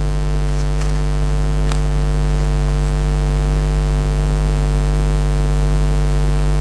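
Loud, steady electrical mains hum with an even ladder of overtones, unbroken throughout.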